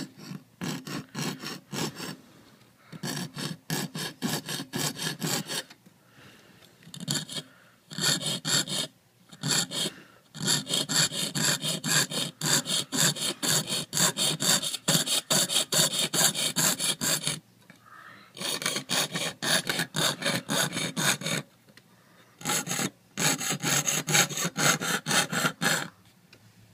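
Jeweler's saw cutting through copper sheet: quick back-and-forth rasping strokes, about four or five a second, in runs of a few seconds broken by short pauses.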